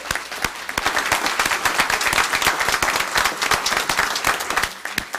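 A church congregation applauding, a dense patter of many hands clapping that dies away near the end.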